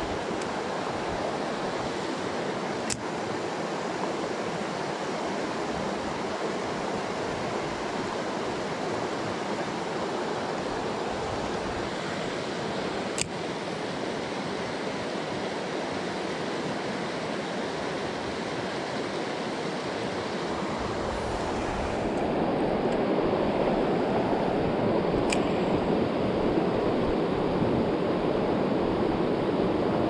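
Shallow rocky mountain stream rushing over stones in a steady wash that grows a little louder about two-thirds of the way in, with a few faint clicks.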